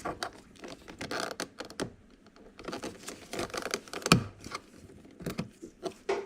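Plastic cover cap being pried off a Ford Fusion's interior door handle: a run of light plastic clicks and scrapes, with one sharper click about four seconds in.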